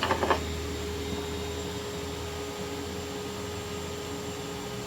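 Shop vacuum running steadily as a blower, pushing air into a tailpipe to pressurise the exhaust for a soapy-water leak test: an even rushing noise over a steady motor hum.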